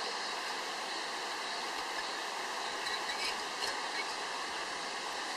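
Mountain river flowing over stones: a steady rushing with a few faint ticks on top.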